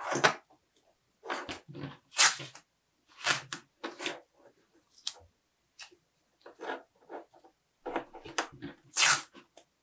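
Fabric loom tape being pulled off the roll and wrapped around a bundle of car wiring, in a series of short irregular rips and rustles, the loudest about two seconds in and near the end.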